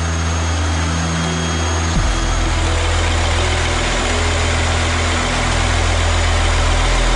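Ship's engine-room machinery running with a steady deep hum and a constant hiss over it; the hum gets deeper about two seconds in.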